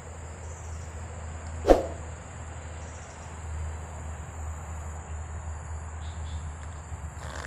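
Steady high-pitched insect chirring over a low steady hum, broken by one sharp knock a little under two seconds in.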